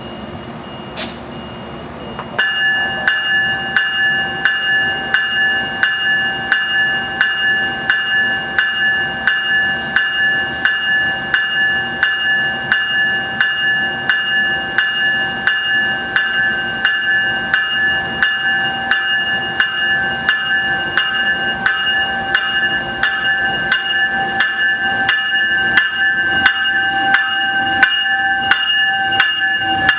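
A passenger train's warning bell ringing steadily, with evenly spaced strikes about one and a half times a second, starting a couple of seconds in, as the Metrolink train gets under way from the station.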